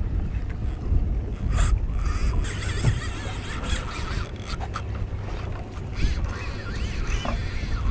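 Steady low rumble of wind and boat on open water while an angler fights a hooked sailfish on a spinning reel. Short knocks and wavering high squeals from the reel and line come and go over the rumble.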